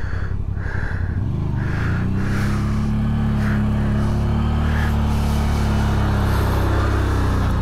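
CF Moto CForce 1000 ATV's V-twin engine running, growing louder over the first two seconds and then holding steady.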